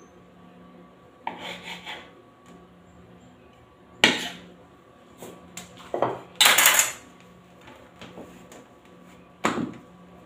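Kitchen knife cutting half cake dough on the counter: a few sharp knocks of the blade striking the counter through the dough, and a louder metallic scrape and clatter of the knife against the steel sink about two thirds of the way in.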